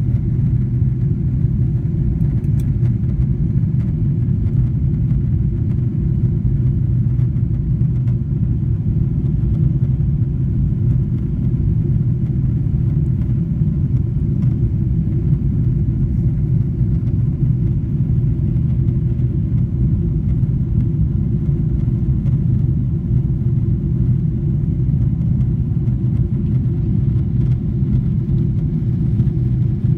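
Steady, even rumble heard inside the cabin of a Boeing 777-300ER in flight: the drone of its GE90 engines and the rush of air past the fuselage.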